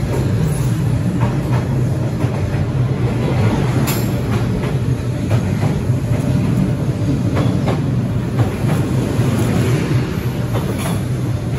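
Passenger train carriages rolling past at very close range: a steady low rumble with scattered clicks and clacks from the wheels on the track.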